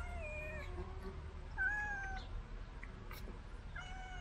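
Cat meowing three times: a meow at the start, a louder one about a second and a half in, and a longer one starting near the end.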